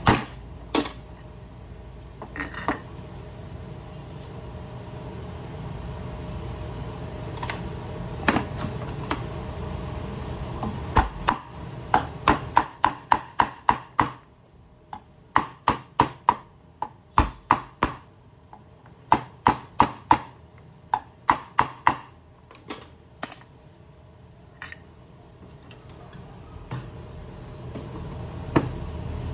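Metal-on-metal tapping on a fan motor's rotor shaft and bearing, with pliers knocking against the shaft. The sharp, ringing taps come in quick runs of about three a second, with short pauses, over a steady low hum.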